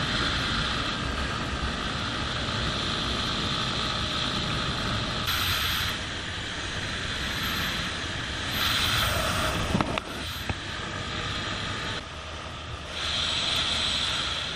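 Vehicle on the move: steady engine, tyre and wind noise with a low rumble that swells and eases a few times.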